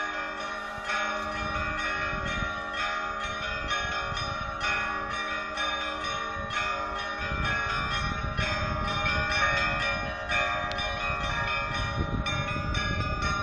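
Several Orthodox cathedral belfry bells ringing together, their clappers striking in quick, overlapping strokes. High, bright bells sound over lower bells that keep on ringing.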